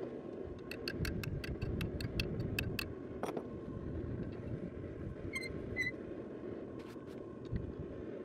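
Steel hand tools clinking and knocking against a cast-iron bench vise and a bent steel blade: a quick even run of about a dozen sharp metallic ticks, a heavier knock, then two short ringing clinks. Under them a steady low rumble.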